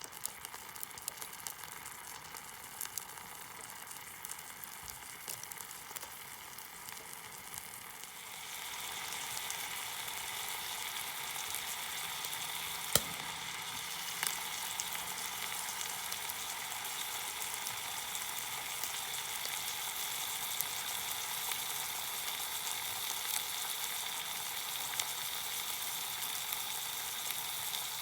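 Food sizzling as it fries in a pan, a steady hiss that grows louder about eight seconds in, with one sharp click about halfway through.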